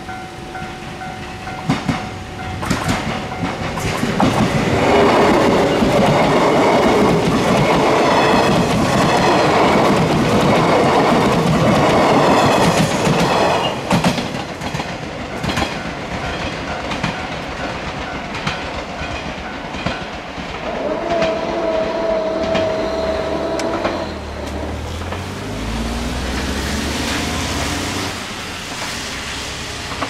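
A 381 series limited express electric train runs past close by, its wheels clattering in a rhythm over the rail joints. The passing is loudest from about four seconds in to about fourteen, then fades as the train goes away. At the start a level crossing warning bell is ringing with a repeating tone.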